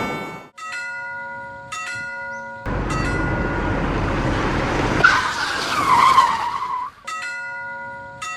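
Animated railroad-crossing sound effects: a ringing bell chime struck about once a second, cut off by a rushing, rumbling noise with a wavering high squeal lasting about four seconds, after which the bell chime resumes.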